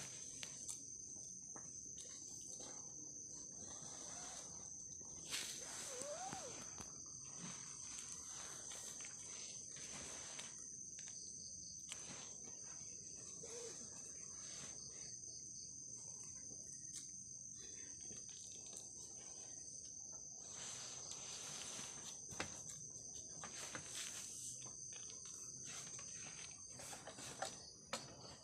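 A steady high-pitched trill of night insects, with scattered soft knocks and rustles over it.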